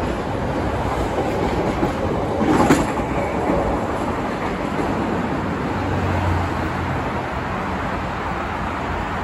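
CTA Blue Line 2600-series rapid-transit train pulling away from the station, its wheels clacking over the rail joints as it recedes. There is one sharp clack about two and a half seconds in.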